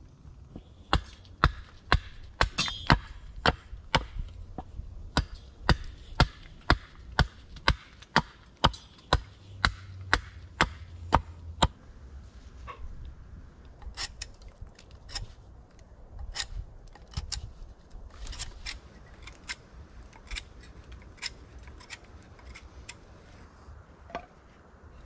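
Repeated chopping strikes on wood, about two a second, loud and regular for roughly the first half, then lighter and more irregular.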